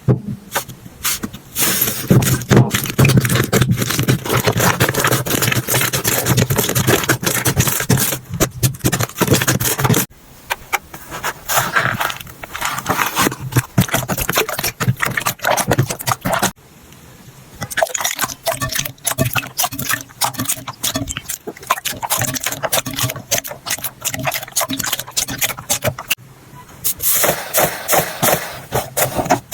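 Slime being handled and squished by hands, making dense, rapid crackling and popping, in several clips that change abruptly about 10, 16 and 26 seconds in.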